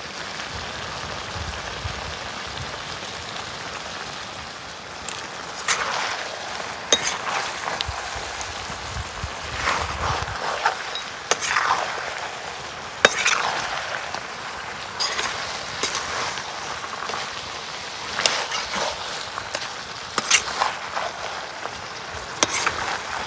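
Perforated metal ladle scraping and clinking against a metal kadai as the goat head curry is stirred, with a strike every second or two from about five seconds in. Under it runs a steady sizzle from the curry cooking over the fire.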